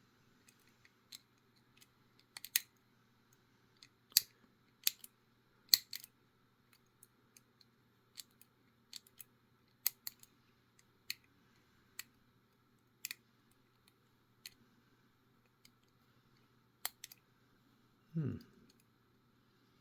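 Lock pick and tensioner working the levers of a small Abus 425/45 four-lever padlock: sharp metallic clicks and ticks at irregular intervals as the wire lifts the levers. A brief low sound, falling in pitch, comes near the end.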